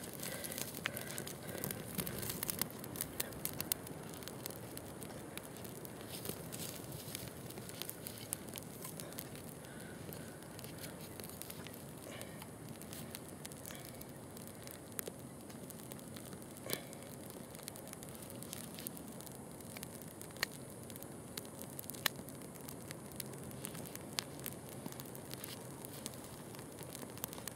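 Small fire of grass tinder and twigs crackling in a Dakota fire hole: a dense run of crackles in the first few seconds, then sparser, sharper pops. The kindling seems a little damp and the fire is slow to catch.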